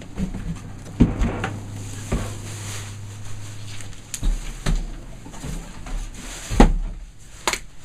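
Scattered knocks and thumps of cardboard boxes and belongings being handled and set down in a small room, with a loud thump about a second in and the loudest one about six and a half seconds in. A low hum runs through the first half.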